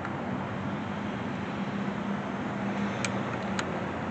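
Steady outdoor background noise with a faint low hum, and two short sharp clicks about three seconds in.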